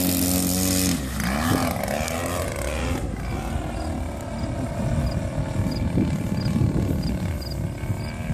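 60cc DLE two-stroke gas engine of a radio-controlled Yak 54 aerobatic plane running at high throttle, then throttled back about a second in, its pitch rising and falling with throttle changes and turning rougher after a few seconds.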